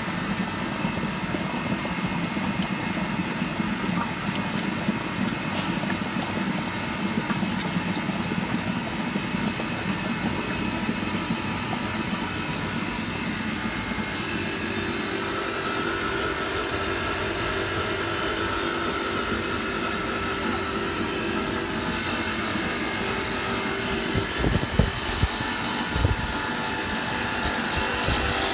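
Steady drone of running machinery. About halfway through a higher steady hum joins in, and a few dull thumps come near the end.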